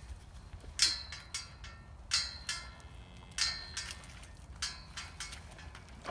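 Metallic clinks and jingles of riding gear as a saddled horse walks. A sharp ringing clink comes about every second and a quarter, with softer ones between, and the loudest comes about a second in.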